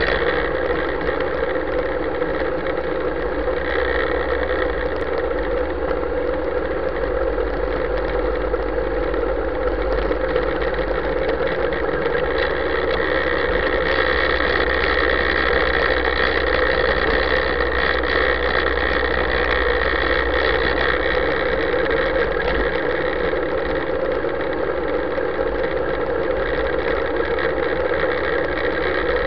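Motorcycle engine running steadily at low revs as the bike rides slowly, picked up by a camera mounted on the bike.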